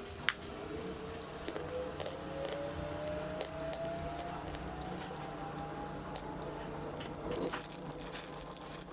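Close-up chewing of Khrapovsky lump chalk, a soft, medium-density chalk that dissolves in the mouth like soufflé: moist squishing with many small crackles and clicks. A denser crackly patch comes near the end.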